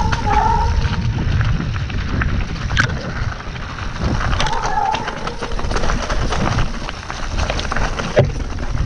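Mountain bike descending a rocky, leaf-strewn singletrack: tyres crunching over stones and leaves and the bike rattling over bumps, with wind rumbling on the camera microphone. There is a sharp knock near the end.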